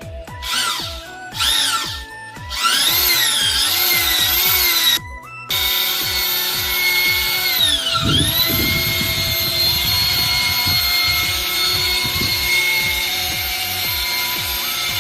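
Electric hand drill converted to a well-drilling rig, its motor whining up in short spurts and then running steadily. It cuts out briefly, and about eight seconds in its pitch sags under load and picks back up. Background music with a beat plays underneath.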